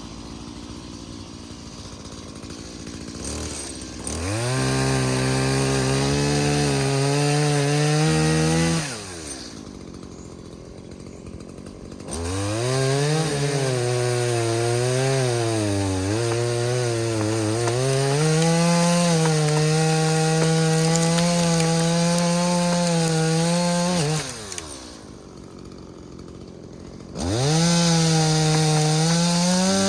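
Stihl MS170 two-stroke chainsaw idling, then revved to full throttle three times to cut through downed tree limbs, its pitch wavering under load and dropping back to idle between cuts. The longest cut runs about twelve seconds through the middle.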